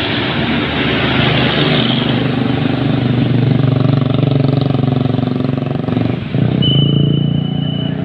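Large bus's engine running loud and close, a steady low drone that grows louder over the first few seconds and dips briefly about six seconds in. A thin, high steady tone sounds for about a second near the end.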